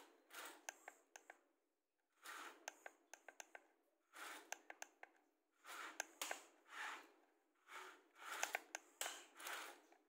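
Plastic toy excavator bucket scraping through sand, with grains trickling and clicking. It comes as a series of short, faint gritty scrapes, roughly one a second.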